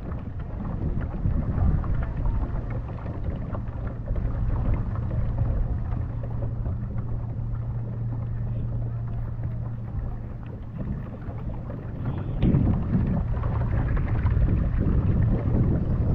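A small motor humming steadily at a low pitch over wind rumbling on the microphone. The hum stops about ten seconds in, and the rumble grows louder near the end.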